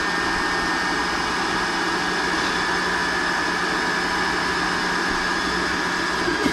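SMACO portable electric high-pressure air compressor running steadily as it is hooked up to fill a 2-liter scuba tank, a steady high whine over a motor hum.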